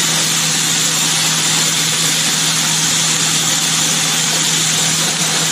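Diced potatoes and broccoli sizzling steadily in olive oil in a frying pan while a spatula stirs them, with a steady low hum underneath.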